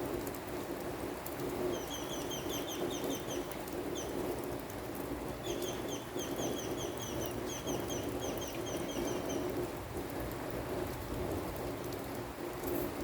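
Steady rain falling, with a bird giving two runs of rapid high chirps, about six or seven a second, early on and again through the middle.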